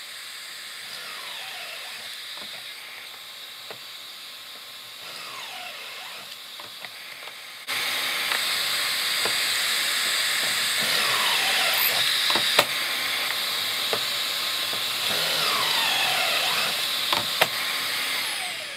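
Cordless drill boring pocket holes through a pocket-hole jig, its motor whining down in pitch each time the trigger is released, several times over. Under it runs the steady rush of a shop vacuum, which jumps much louder about eight seconds in and fades away near the end.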